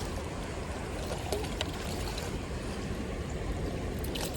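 Creek water running, a steady rushing, with a few faint clicks over it.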